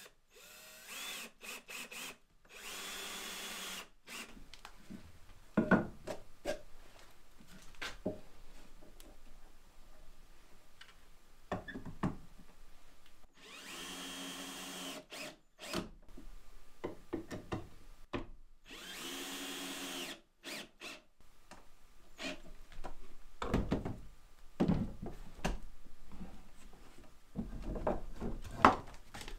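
Power drill running into wood in several short runs of one to two seconds, with knocks and clatter of wood being handled between them.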